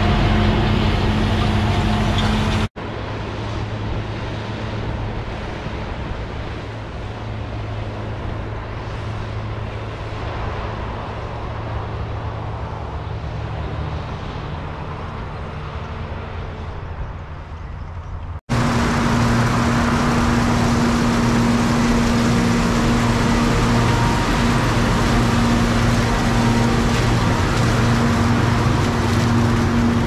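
Old John Deere combines running while harvesting: a steady diesel engine hum with the rush of the threshing machinery. The sound cuts abruptly about three seconds in to a quieter, duller stretch, and again about eighteen seconds in back to a loud engine with a strong steady hum.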